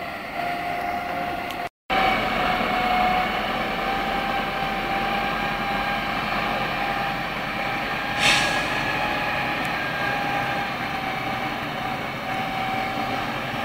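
Tatra 148 fire tanker's air-cooled V8 diesel running steadily under load, with a constant whine over the engine noise. The sound drops out for an instant near two seconds in, and a short hiss comes about eight seconds in.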